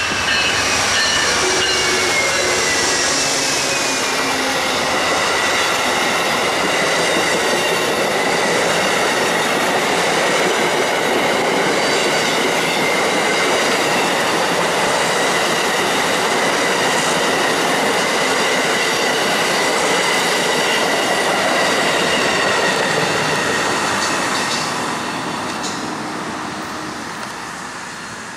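Amtrak passenger train passing at speed: its GE Genesis diesel locomotives go by with a falling pitch, then a long line of passenger cars rolls past with loud, steady wheel-on-rail noise and a steady high ring. The sound fades over the last few seconds as the train moves away.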